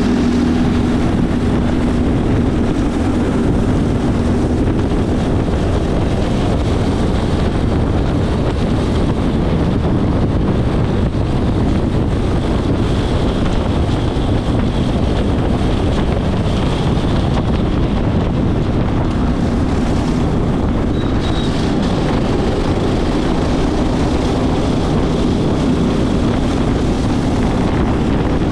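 Racing go-kart engine running hard on track, a loud continuous drone heard onboard, with wind buffeting the microphone.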